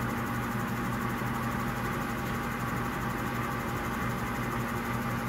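Blanchard No. 18-36 vertical-spindle rotary surface grinder running with its magnetic chuck energised and turning, giving a steady, even hum.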